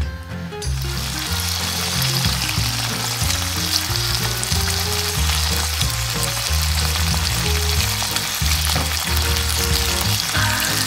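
Smoked bacon strips sizzling in a frying pan, the hiss starting suddenly just under a second in and then holding steady. Background music with a bass line plays underneath.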